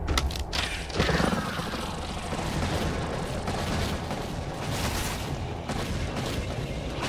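Cartoon battle sound effects: tank cannons firing in a continuous barrage with explosions, a hard blast about a second in.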